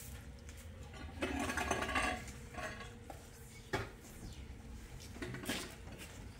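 Clatter of objects being handled, loudest about a second in, then a sharp knock near the middle and another near the end.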